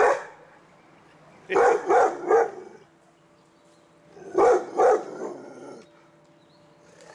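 Pit bull barking in short bursts: one bark at the start, three quick barks about a second and a half in, and two more near the middle.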